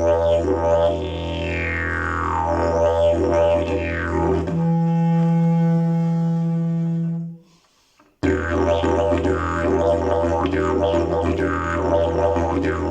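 Fibreglass slide didgeridoo playing a low drone with sweeping, vowel-like changes in its overtones. About four and a half seconds in it jumps to a higher held note, then stops for about a second. The low drone comes back with a rhythmic pulse.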